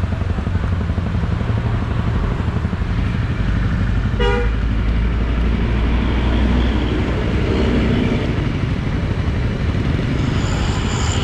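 Honda CRF250's single-cylinder engine running steadily at low speed, with a short vehicle horn toot about four seconds in.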